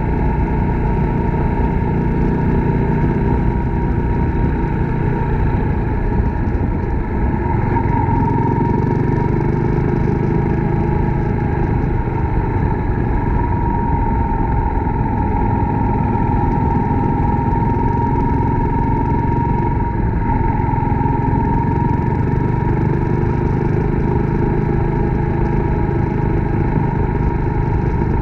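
Suzuki Grasstracker Big Boy's single-cylinder four-stroke engine running steadily while the motorcycle is ridden, mixed with wind and road noise.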